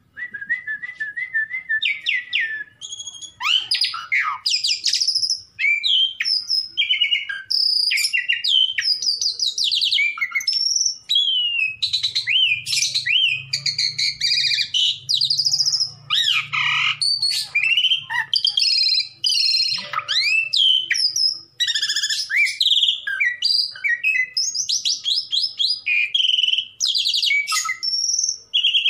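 Asian pied starling (jalak suren) singing without a break. It opens with a quick run of repeated notes, then gives a long, varied string of whistles that slide up and down, mixed with rapid rattling trills.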